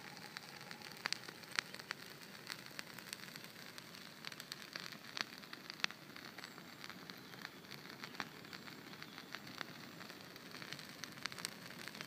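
Brush fire burning in a stone fire ring: a steady crackle with many irregular sharp pops over a soft hiss.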